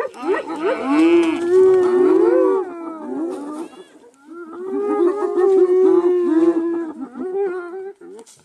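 Several animals crying out together in long, loud, wavering calls that bend up and down in pitch, fading briefly about four seconds in and then starting again.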